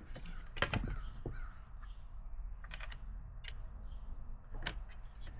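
A handful of sharp, irregularly spaced clicks and taps from screws and a screwdriver being handled while a car door speaker is screwed to its mounting bracket.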